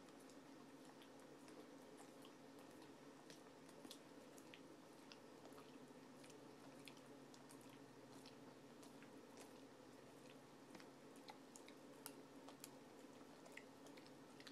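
Boxer dog licking peanut butter off a spoon: faint, irregular wet smacks and tongue clicks of a sticky mouth.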